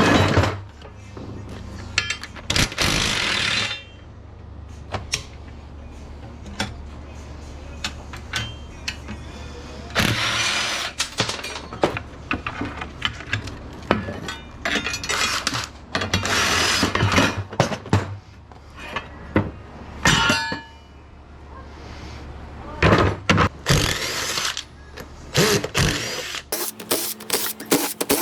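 Metal parts clanking, knocking and scraping as switchgear is taken apart by hand, with short bursts of rattling clatter between scattered knocks over a low steady hum.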